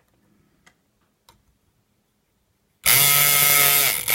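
Electric pick gun buzzing steadily against an old padlock's pins. It starts about three seconds in, after a few faint clicks, and does not open the lock.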